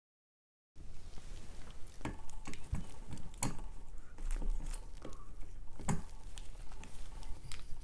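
After a moment of dead silence, irregular clicks, taps and light rustling of hands working at a ceiling fan's mount, tucking the wire splices back into the junction box.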